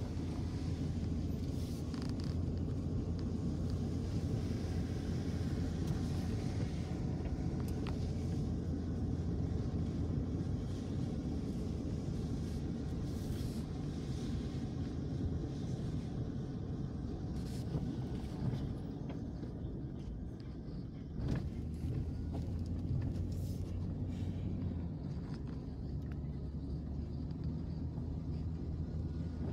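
Vehicle driving on an unpaved dirt and gravel road, heard from inside the cab: a steady low rumble of engine and tyres, with a few sharp clicks and knocks now and then.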